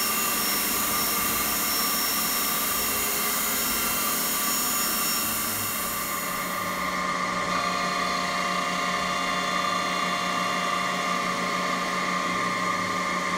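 Grand Rapids universal OD/ID grinder running with its internal-grinding spindle spinning: a steady machine whine of several humming tones over a high hiss. About halfway through the highest hiss drops away and the machine hums on with a changed set of tones.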